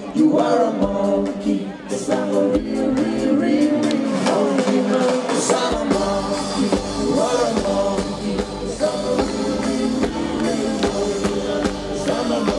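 Live band playing a song while a male lead singer sings into a microphone.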